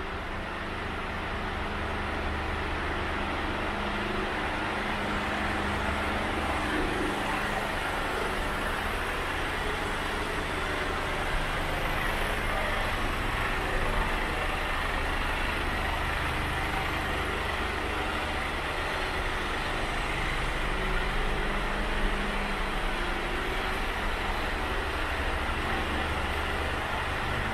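Mercedes Actros 2545 tractor unit's 450 bhp diesel engine idling steadily.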